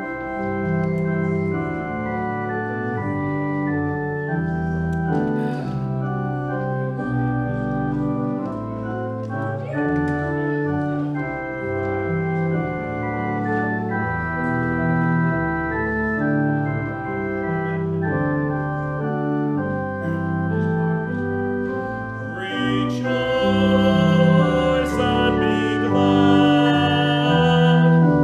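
Organ music playing slow sustained chords. Near the end it grows louder, with a brighter, higher part added on top.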